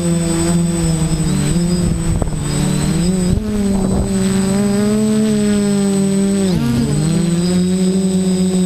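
Multirotor drone's electric motors and propellers droning steadily, heard from a camera mounted on the craft. The pitch dips and recovers a few times as the throttle changes, most sharply about two-thirds of the way in, under a thin steady high whine.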